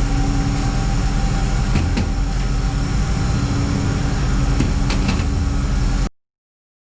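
Steady loud machine hum with a low drone, a few light metallic clicks from tools on the alternator casing, cutting off to silence about six seconds in.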